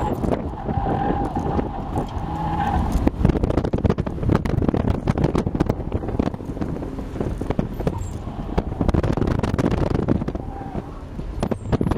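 BMW 3 Series driven hard through an autocross course, heard from inside the cabin: the engine runs under load and revs up and down, with a steady squeal of the tyres from about half a second to three seconds in and briefly again near the end.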